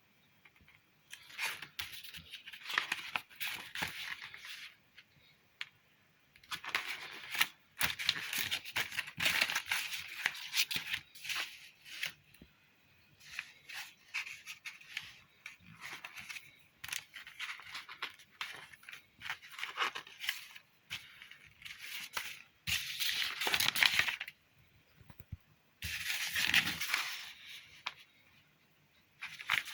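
Packaging being torn and cut away in repeated bouts of crackling, ripping sound with quiet pauses between them.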